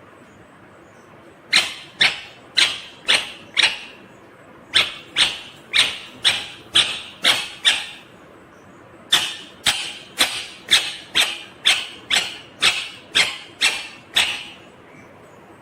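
Indian ringneck parakeet calling: three runs of short, sharp, repeated calls at about two a second, the last run the longest.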